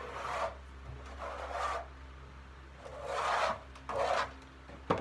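Four short rubbing, scraping sounds as junk is handled and moved, then a sharp knock near the end.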